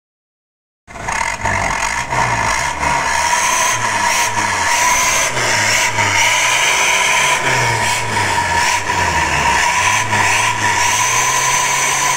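Daihatsu Taft's engine revved up and down in repeated blips through an aftermarket stainless-steel jetbus/SUOS-style exhaust muffler with dual tailpipe tips. The sound starts suddenly about a second in.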